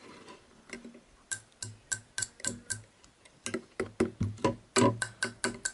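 Sharp, quick clicking taps on a 12-gauge shotgun shell as it is flicked over a plastic bottle to knock the last loose powder out. The taps come about four a second, then quicken about halfway through.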